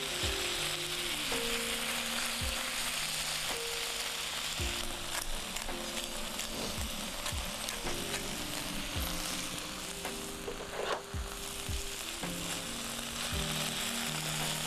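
Thin-sliced pork and onions sizzling steadily on an electric griddle, with occasional sharp taps and scrapes of a spatula against the pan. Soft background music plays underneath.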